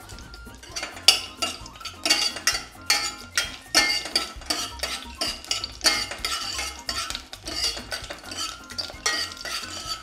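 Steel ladle stirring and scraping in a stainless-steel pressure cooker, clinking irregularly against the metal as whole spices are tossed in hot ghee and oil. The clinks start about a second in.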